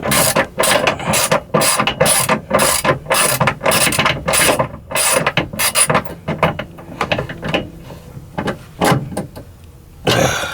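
Hand ratchet wrench clicking in quick back-and-forth strokes, about three a second, as bolts are tightened down; the strokes thin out to a few spaced clicks in the second half.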